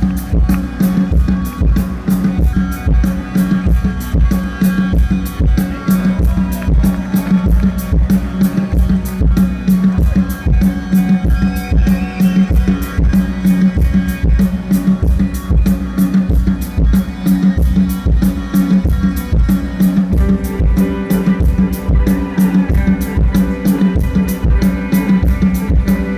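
Live rock band playing with a steady drum-kit beat over a held low note.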